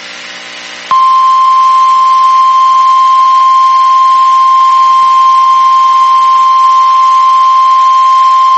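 NOAA Weather Radio warning alarm tone (the 1050 Hz alert tone): after a quieter low hum, a single loud, steady, unbroken tone starts about a second in and holds. It signals that a warning message follows, here a flash flood warning.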